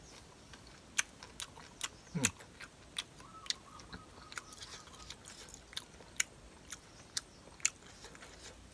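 A person chewing food close to the microphone, with sharp, irregular crunches and wet mouth clicks. There is a short falling hum about two seconds in.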